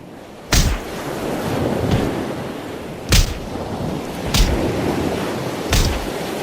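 Ocean surf and rushing water with wind buffeting the microphone of a waterproof action camera, broken by four sharp thumps of water striking the camera.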